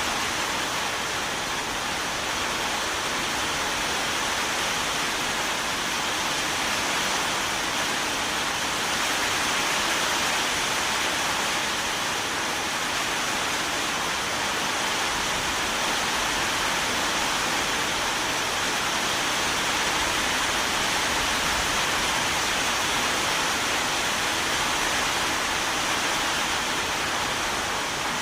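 Steady rain falling: an even, unbroken hiss that neither builds nor fades.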